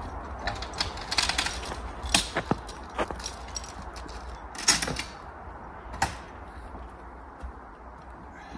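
A run of irregular sharp clicks and crunches, a quick cluster about a second in and single louder ones every second or so, dying away after about six seconds.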